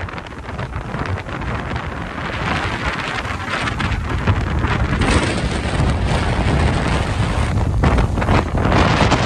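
Strong, gusting thunderstorm wind buffeting the microphone: a rough rush of noise that grows louder in the second half.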